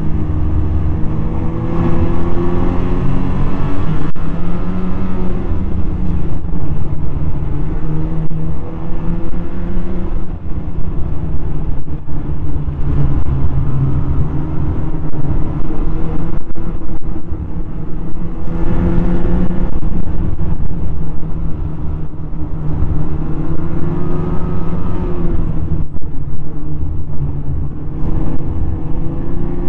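Snowmobile engine running while riding, its pitch rising and falling several times as the throttle opens and eases off, over a steady low rumble of wind on the microphone.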